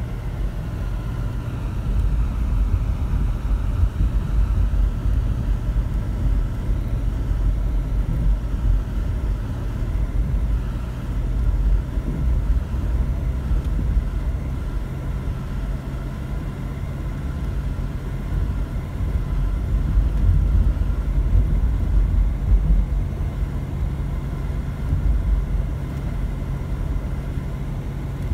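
Mercedes-Benz car driving at steady speed, heard from inside the cabin: a continuous low rumble of tyre, road and engine noise.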